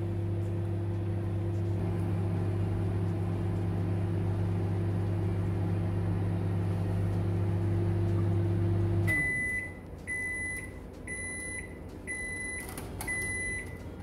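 Panasonic microwave oven running with a steady hum. About nine seconds in, the hum stops as the timer runs out and the oven gives a string of short high beeps to signal the end of the cycle.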